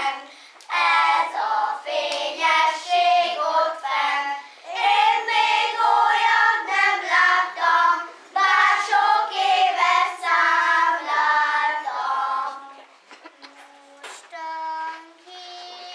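A group of young children singing a song together, with sustained sung notes. The singing drops away near the end and then resumes more quietly.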